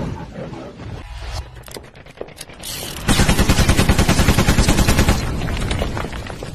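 Machine-gun fire sound effect: a few scattered sharp clicks, then about two seconds of rapid, evenly spaced shots at roughly ten a second, dying away near the end.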